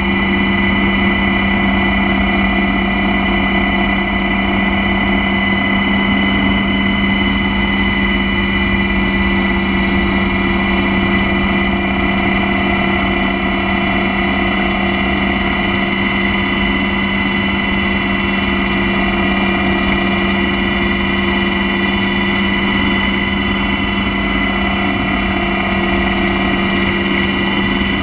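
Aircraft engine heard from on board, running steadily with a constant high whine over a low rumble as the aircraft comes in low over the runway.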